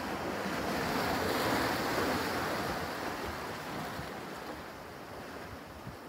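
Small waves washing in among dark shoreline rocks: one wash swells to its loudest about two seconds in, then slowly ebbs away.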